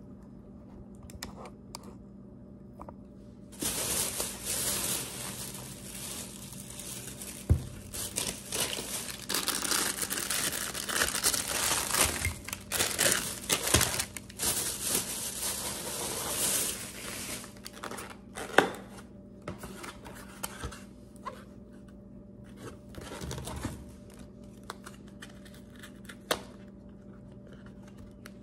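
Packaging being crinkled and torn, busiest for the first half after a short quiet start, then in sparser handling sounds, with a few sharp knocks.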